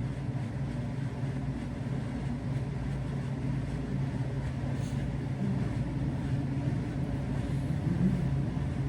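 Steady low hum with a faint hiss of background noise; no sneeze is heard.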